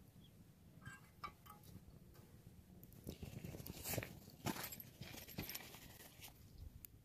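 Small twig fire crackling and snapping inside a folding stainless-steel wood-burning stove, with a pot sitting over the flames; the snaps grow thicker and louder about three seconds in.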